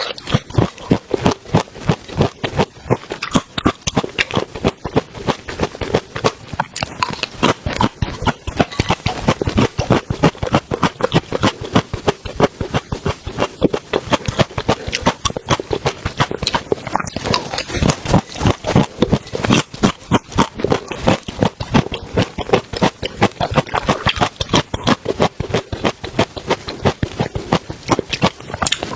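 Close-miked eating sounds: rapid, wet chewing and lip-smacking clicks, several a second, without a break.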